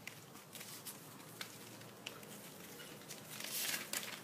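Pomeranian puppies' paws scrabbling and pattering over a newspaper-lined floor, with scattered light scratches and a louder rustle of paper about three and a half seconds in.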